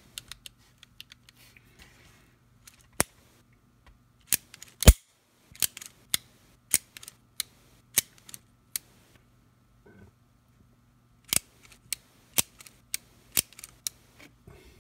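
Taurus Model 80 .38 Special revolver's double-action mechanism worked by hand: sharp metallic clicks of the hammer and cylinder, coming irregularly, a few louder than the rest. The action is being checked for timing, which comes out good.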